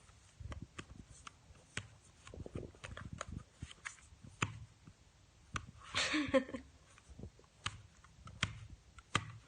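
Scattered, irregular small clicks and taps, with a brief voice sound about six seconds in.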